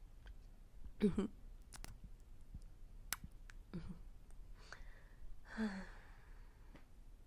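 A woman's close-miked soft vocal sounds: three short sighs or murmurs, about a second in, near four seconds and near six seconds, with sharp mouth clicks between them.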